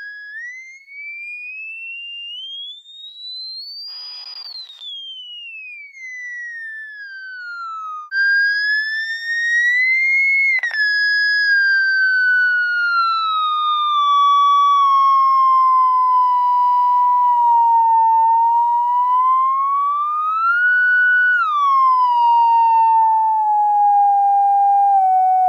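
Tone generator playing one pitched electronic tone through a loudspeaker, sweeping in frequency. It climbs high and falls back over the first eight seconds, then after a brief break returns louder, sliding slowly down, rising again near the end and dropping lower.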